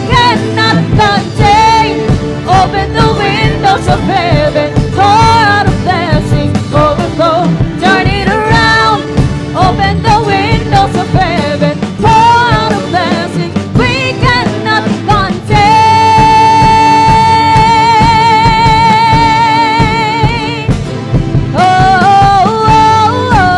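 Live praise-and-worship band music: a woman sings lead into a microphone over drum kit and band. Two-thirds of the way through she holds one long note with vibrato for about five seconds.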